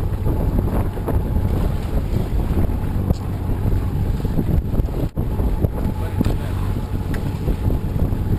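Wind buffeting the microphone and water rushing along the hull of a sailing yacht under way, over a steady low hum. The sound drops out for an instant about five seconds in.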